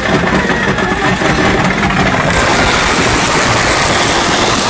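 A burning stock of consumer fireworks going off all at once: a loud, dense, continuous crackling of firecrackers and pops, turning hissier about two seconds in.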